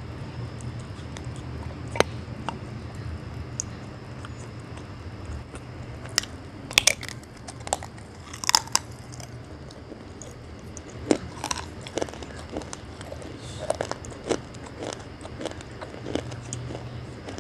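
A person biting and chewing something hard and crunchy close to the microphone: a string of separate sharp crunches, several in quick succession in the middle and more spread through the second half, over a low steady hum.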